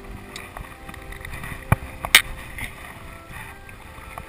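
Small boat on the water: two sharp knocks about half a second apart, roughly two seconds in, over a faint steady hum.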